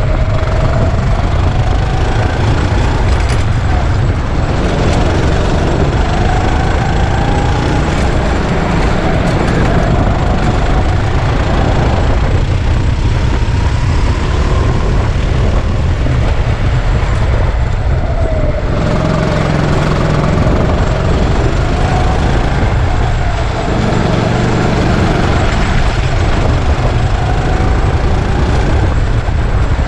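Go-kart engine running hard through laps, its pitch climbing slowly over several seconds as it accelerates and then falling quickly off the throttle, again and again, over a heavy low rumble.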